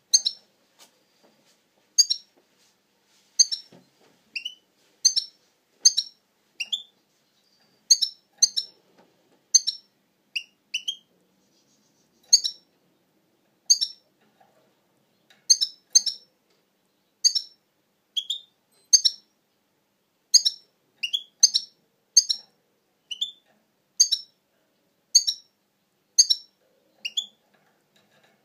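European goldfinch calling: short, sharp high chirps, singly or in quick pairs, about one a second, with a few lower rising notes mixed in.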